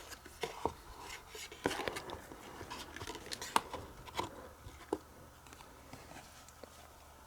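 Small taps, clicks and light rustling of cardboard trading cards being handled and set onto a cardboard easel, about a dozen short taps over the first five seconds, then only faint handling.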